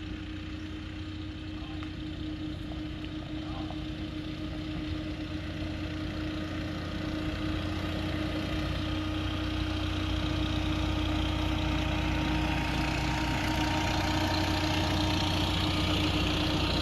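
A motor vehicle's engine running steadily with a low hum, growing gradually louder.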